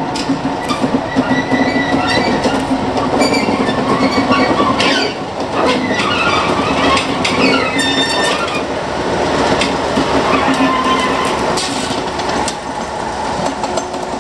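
Train passing slowly and close by: a steady engine or motor hum, wheels clicking over rail joints and squealing on the rails. It is loud throughout, loudest around the middle as it goes past.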